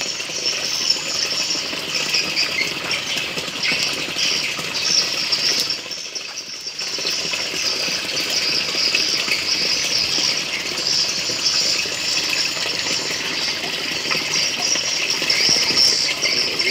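Steady rush of water running through a hydroponic grow pipe, with a brief drop in level about six seconds in.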